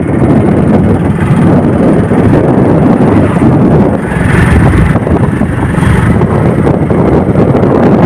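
Loud, steady wind rumble buffeting the microphone of a camera riding on a moving vehicle, with road and vehicle noise underneath.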